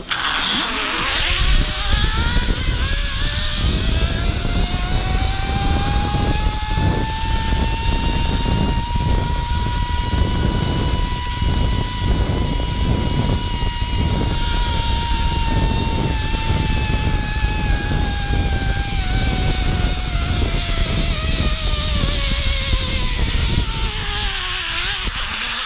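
Zip line trolley's pulley wheels whining along the steel cable, with a rush of wind noise underneath. The whine climbs in pitch over the first several seconds as the rider gains speed, holds high through the middle and slides back down near the end as the rider slows.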